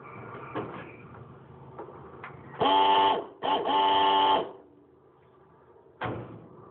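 Air horns on a 1967 Dodge pickup blown in two blasts, a short one and then one about a second long, each bending up in pitch as it starts; the horns' compressor is broken and they sound beyond terrible, ugly. A single knock follows near the end.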